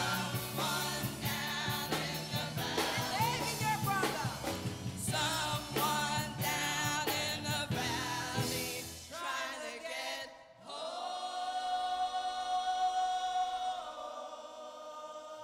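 Gospel choir singing over a steady beat and bass, which drop out about ten seconds in; the choir then holds one long chord that fades near the end.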